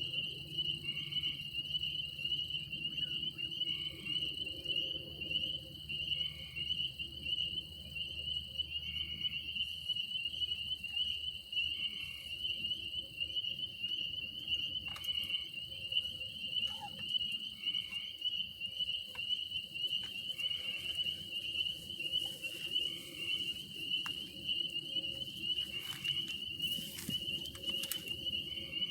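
Night insect chorus of crickets: a steady, high-pitched trill, with a second, lower call repeating about every three seconds.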